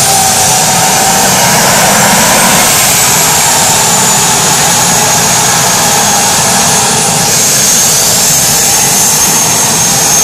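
Homemade turbocharger-based turbojet running loudly and steadily during its first startup, a dense rushing noise with a high turbine whine that drifts slowly lower in pitch.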